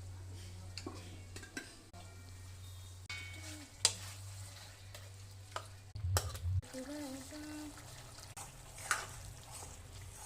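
Cluster beans (gavar fali) stir-frying in a pan, with a spoon scraping and clinking against the pan now and then. A low steady hum runs underneath.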